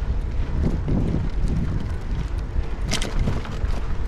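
Wind buffeting the microphone of a GoPro action camera riding along on a moving bicycle, a loud unsteady low rumble, with one sharp click about three seconds in.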